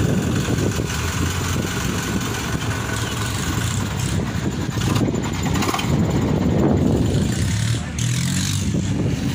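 A diesel tractor engine running steadily.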